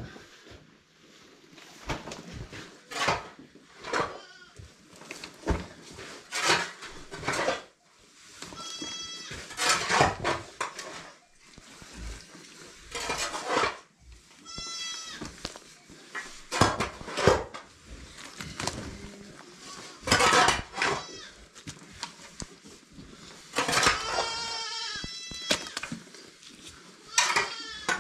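Goats bleating: a few separate calls, the longest a quavering bleat near the end. Between them come repeated scrapes and knocks of a tool scraping the barn floor clean.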